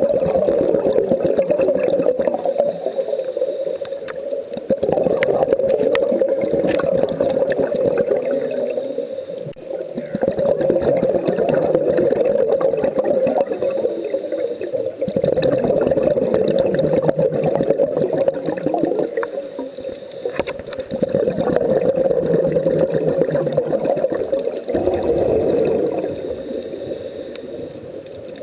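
A scuba diver breathing through a regulator underwater. Long gurgling bursts of exhaled bubbles alternate with shorter, quieter inhale hisses in a slow cycle of about five to six seconds, about five breaths in all.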